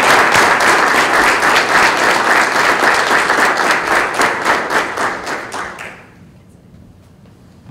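An audience applauding, many hands clapping at once, dying away about six seconds in.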